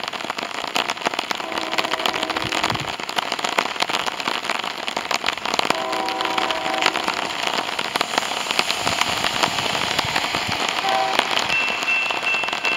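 Steady heavy rain hissing and crackling. Over it, a distant train horn sounds a chord three times: a blast about a second and a half in, another around six seconds, and a short one near eleven seconds. Near the end, the grade-crossing warning bell starts ringing as the crossing activates for an approaching train.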